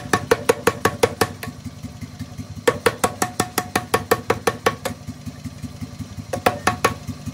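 Rapid, evenly spaced hammer blows on steel, about five a second, each with a short metallic ring, in loud spells with lighter strikes between. Under them runs a steady low motor hum. The steel being forged is a piece of 105 mm cannon barrel.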